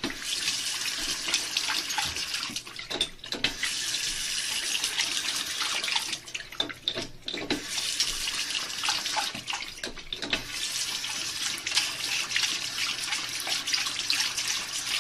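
Bathroom sink faucet running, water splashing steadily into the basin, with a few brief dips in the flow noise.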